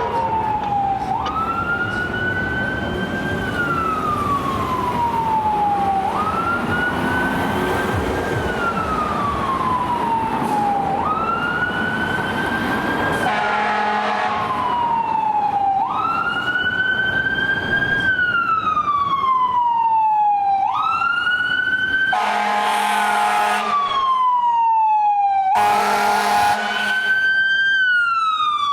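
Fire engine's electronic siren on a wail, each cycle rising quickly and then falling slowly, about every five seconds. Two air horn blasts sound in the last third.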